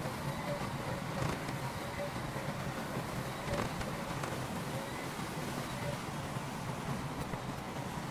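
Diesel engine of heavy earthmoving machinery running steadily under a low hum, with a few faint metallic clanks.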